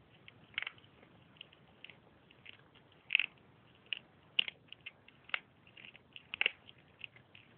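A cat chewing and crunching the bones of a rabbit it has caught: irregular sharp crunches at an uneven pace, a few of them louder.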